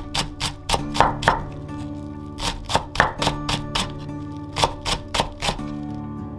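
Kitchen knife mincing long green onion on a wooden cutting board: three quick runs of sharp chops, over gentle guitar background music.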